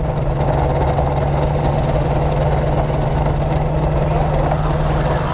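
Ultralight aircraft's two-stroke engine running steadily at a constant speed.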